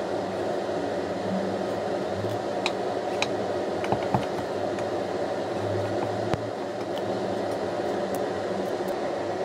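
Kitchen knife slicing mushrooms on a wooden chopping board: a handful of short, sharp taps of the blade against the board over a steady low machine hum.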